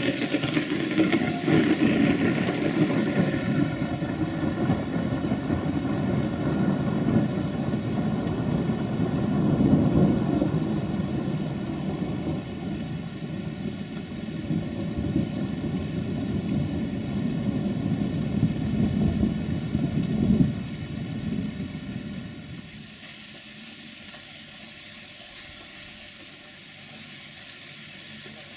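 A long roll of thunder that starts suddenly and rumbles on for about twenty seconds, then dies away, leaving a steady hiss of light rain.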